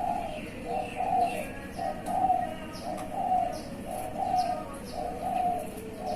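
Doves cooing, a short repeated call about once a second, with small birds chirping faintly over it.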